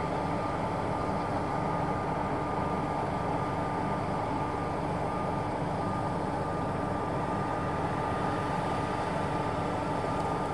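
Claas Tucano 570 combine harvester running steadily, with a constant high whine above the engine noise.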